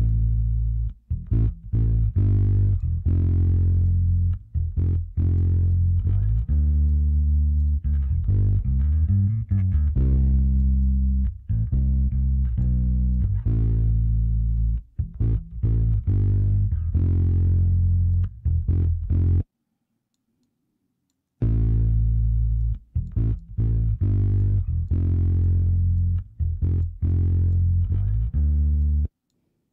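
Bass guitar track playing back through a vintage compressor plugin, a line of plucked bass notes with short bright attacks. It stops about two-thirds of the way through, starts again after a gap of about two seconds, and stops shortly before the end.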